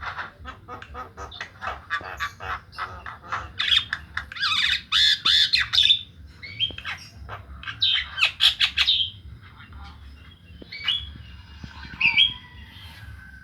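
Javan myna calling: a fast run of harsh chattering notes, then loud raspy squawks, with a few thin whistled notes near the end.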